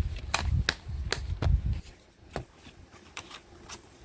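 Plastic DVD case and discs being handled: a run of sharp clicks and taps with low bumps over the first two seconds, then a few scattered clicks.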